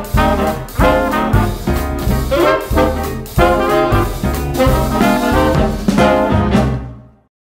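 Upbeat swing-style background music led by brass, with a steady beat, fading out to silence near the end.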